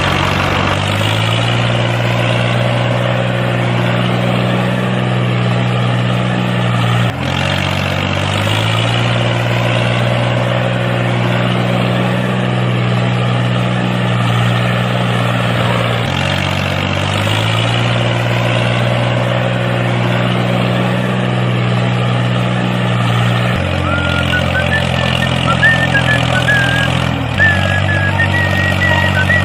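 Tractor engine running steadily at a low pitch. Its note drops and picks back up a few times.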